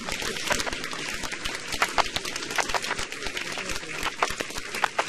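A small group of people applauding, many sharp hand claps overlapping.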